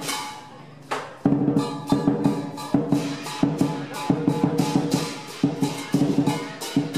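Lion dance percussion: a big drum beaten in a fast, driving rhythm with cymbal crashes on the beats. It drops out briefly near the start and comes back in about a second in.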